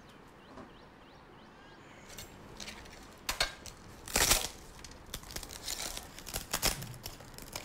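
Dining-table sounds during a meal: spoons and dishes clinking and scraping and food being handled, a run of short clatters and crinkling noises starting about two seconds in, the loudest about four seconds in.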